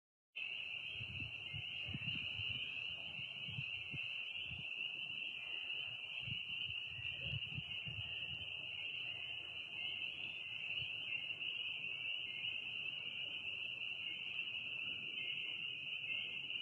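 Chorus of spring peepers: many tiny frogs peeping together in a dense, steady, high-pitched chorus, with some low rumbling in the first half.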